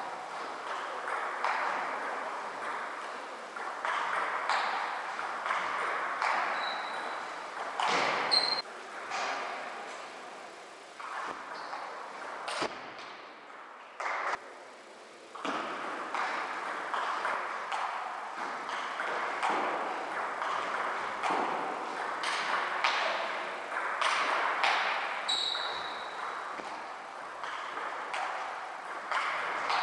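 Table tennis rallies: the ball clicking off the paddles and the table in quick back-and-forth strikes, over a steady hall hum. A quieter spell in the middle falls between points.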